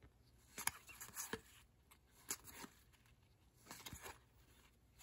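Faint handling of baseball cards as a stack is thumbed through one card at a time: a few soft, irregular slides and light clicks of card stock.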